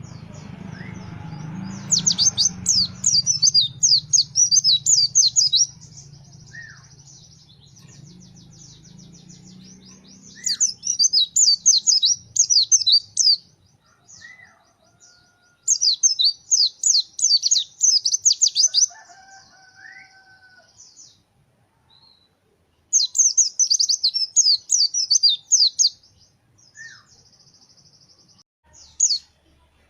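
Pleci (white-eye, Zosterops) singing its rapid-fire 'shooting' song: four loud bouts of fast, high twittering notes a few seconds each, with a short burst near the end and a faint buzzy trill between bouts. A low hum fades out in the first dozen seconds.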